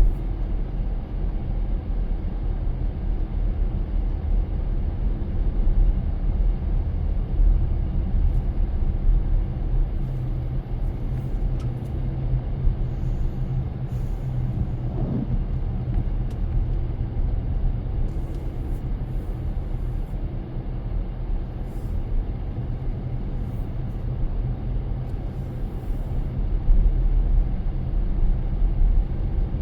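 A car driving, a steady low rumble of engine and tyres on the road, with a brief rising note about fifteen seconds in.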